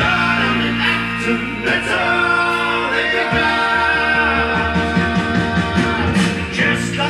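A vinyl LP playing on a Kenwood KD-3070 direct-drive turntable: a song with singing over a steady bass line.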